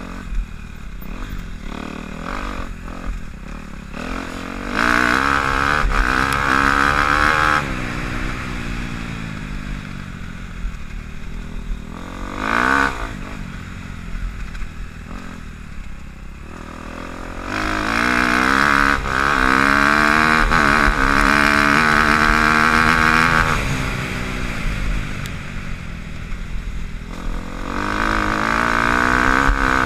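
Dirt bike engine running under the rider's throttle, its pitch rising and falling as it accelerates, shifts and backs off. It pulls hard for a few seconds early on, gives a quick blip near the middle, then holds a longer hard pull past halfway and another near the end.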